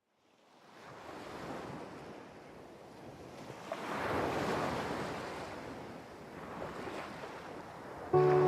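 Ocean surf: waves washing in and drawing back, swelling and fading about three times after fading in from silence.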